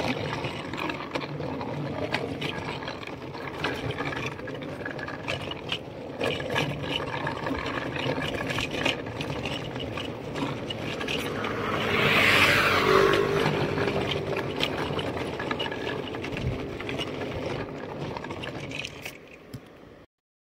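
Steady road noise with a vehicle passing by, rising to its loudest about twelve seconds in and then fading.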